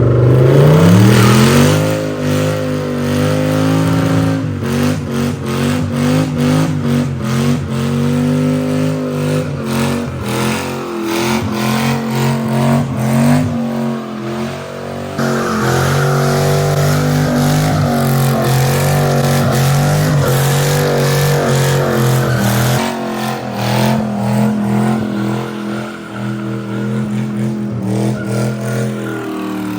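A 4.8-litre LS V8 in a Nissan 240SX is revved hard, its note rising and falling again and again, with tires squealing as the rear wheels spin.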